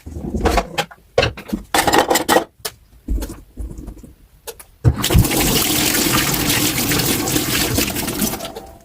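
Dishes clattering and knocking in a kitchen sink for the first few seconds, then the tap is turned on about five seconds in and water runs steadily into the sink.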